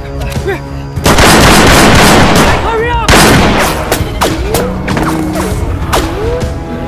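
Two loud, rushing blasts in an action-film soundtrack. The first starts about a second in and lasts nearly two seconds; the second hits just after three seconds and fades away. Music plays underneath, with rising-and-falling cries between the blasts.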